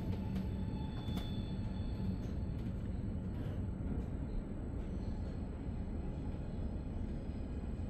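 Double-deck commuter train running, heard from inside the passenger coach: a steady low rumble, with a few sharp clicks in the first second or so.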